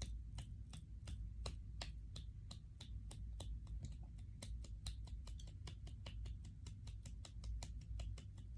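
Light, quick hand claps or slaps, about four to five a second, keeping a steady beat over a low hum.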